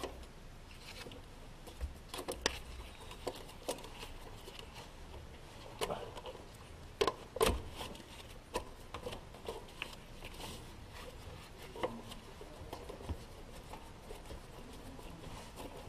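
Scattered metallic clicks, knocks and rubbing as a band-type oil filter wrench is fitted around a car's oil filter, with a couple of sharper knocks about seven seconds in.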